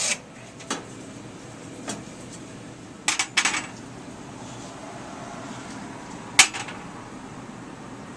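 Scattered metallic clinks and knocks of plumbing tools and copper pipe being handled, with a quick cluster about three seconds in and one sharp, loud clink about six seconds in.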